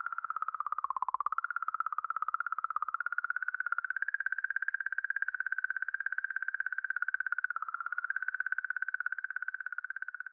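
Sonification of comet 67P/Churyumov–Gerasimenko's 'song': oscillations in the magnetic field around the comet, recorded by the Rosetta spacecraft and sped up into the audible range. A warbling tone made of rapid pulses, wavering slightly in pitch.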